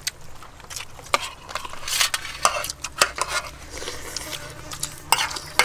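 Metal spoons and forks scraping and clinking against a stainless steel serving tray as food is scooped up, in irregular clinks and scrapes several times a second.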